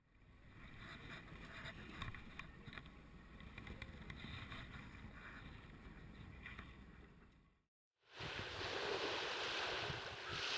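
Low rumble of a boat's engine under wash and wind noise, with scattered small clicks; it cuts off just before eight seconds. After a moment of silence comes louder, steady surf and wind noise.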